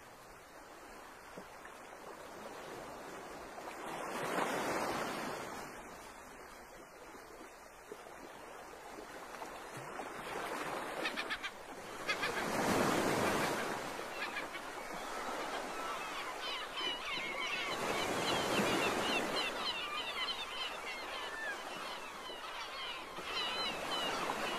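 Seaside ambience: rushing swells of wind or water noise that rise and fade every few seconds, with birds calling repeatedly in the second half.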